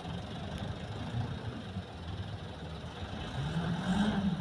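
Light dump truck's diesel engine running as the truck manoeuvres on a dirt track. Near the end it is revved, rising in pitch and getting louder.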